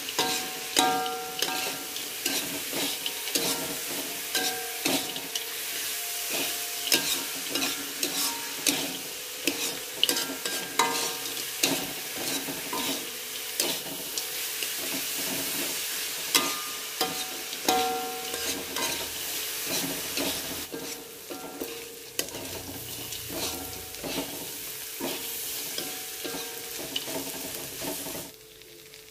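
Metal spatula scraping and clattering against a metal wok as pieces of fried tempeh and potato are stir-fried, over a steady sizzle. The stirring stops just before the end.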